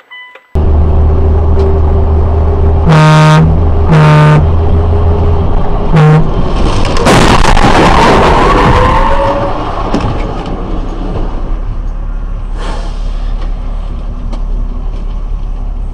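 Car horn sounded in three short blasts over steady engine and road noise. About seven seconds in comes a collision: a loud crunch and scraping that fades over a few seconds, then traffic noise.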